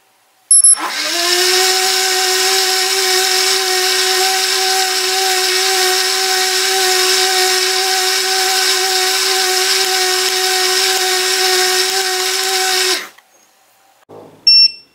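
Wonderchef automatic soup maker's blade motor spins up about half a second in, quickly rising to a steady pitch, and runs evenly for about twelve seconds, blending the boiled pumpkin smooth, then cuts off sharply. Near the end a short electronic beep sounds, the start of the machine's soup-ready buzzer.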